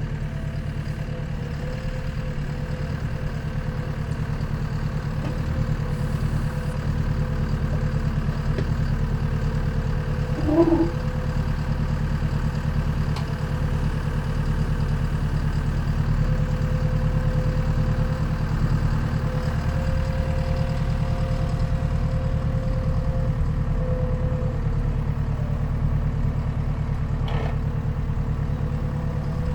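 Skid steer loader's engine running steadily, with a thin steady higher tone over it. About ten seconds in there is one brief chirp, the loudest moment.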